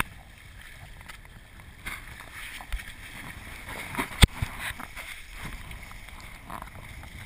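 Wind and rushing water around a 22-foot homemade Pacific flying proa sailing briskly, with a few sharp knocks from the boat; the sharpest comes about four seconds in.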